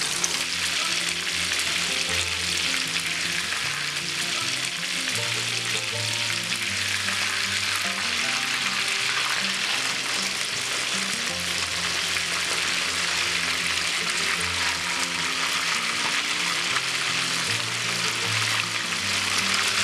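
Whole fish frying in hot oil in a pan, a steady sizzle, with low background music underneath.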